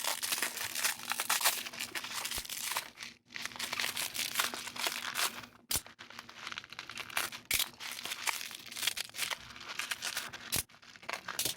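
Packaging crinkling and tearing as it is handled and opened by hand, with brief pauses and a few sharp clicks.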